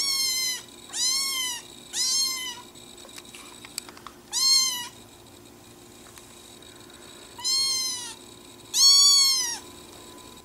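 Kitten meowing six times, high-pitched meows that each rise and then fall in pitch; the last meow, near the end, is the longest and loudest.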